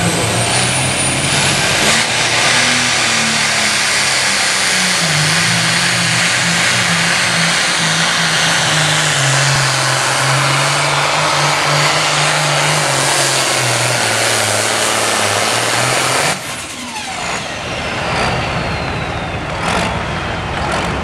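Pro stock pulling tractor's turbocharged diesel engine running at full power under load as it drags the weight sled, with a high rising whistle at the start. The engine note wavers and sags through the run, then cuts off suddenly about sixteen seconds in, leaving a thin falling whine.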